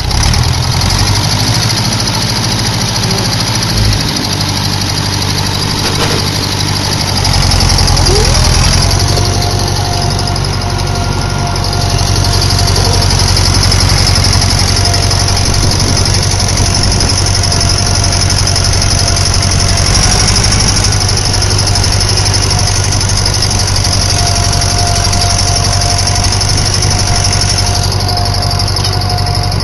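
1964 David Brown tractor engine running steadily at about 1600 rpm while pulling a harrow. The note deepens and grows a little louder about seven seconds in. A thin squeal comes and goes from about nine seconds in.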